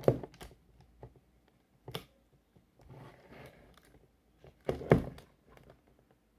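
A plastic Mattel Yangchuanosaurus action figure being handled and set down on a table: a sharp thunk at the start and another, the loudest, about five seconds in, with light taps and the rustle of handling between.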